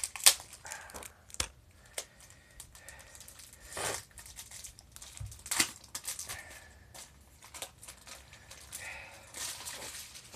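Wrapper of a trading-card booster pack crinkling and being torn open. Short rustles and clicks come at intervals, with bigger bursts near the start, about four and five and a half seconds in, and near the end.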